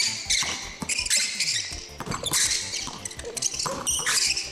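Basketball shoes squeaking sharply on a hardwood court in quick, repeated chirps as players cut and change direction, with a basketball bouncing on the floor under the squeaks.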